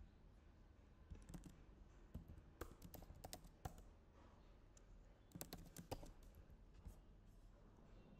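Faint computer keyboard typing: a few short runs of keystrokes with pauses between them.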